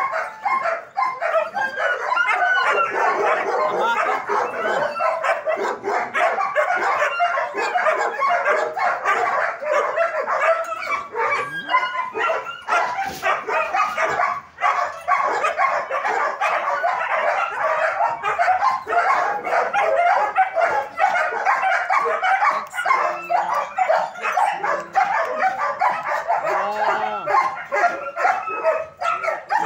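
Many German shepherds in kennel runs barking at once, many calls overlapping in one continuous stretch of barking with no pause.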